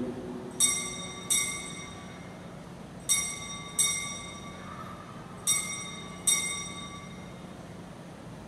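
Altar bell struck six times in three pairs, each strike ringing out and fading, rung at the elevation of the consecrated host.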